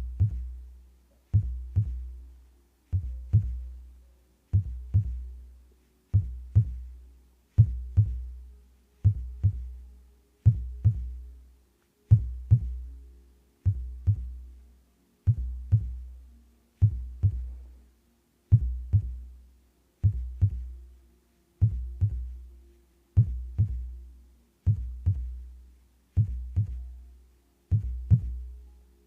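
Amplified human heartbeat: a slow, steady lub-dub, two close thumps with a deep boom, repeating about every one and a half seconds.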